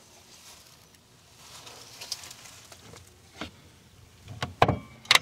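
Faint hiss, then a few sharp clicks in the last second and a half, the loudest near the end: a 1/2-inch plywood cabinet door and its metal window sash latch being worked.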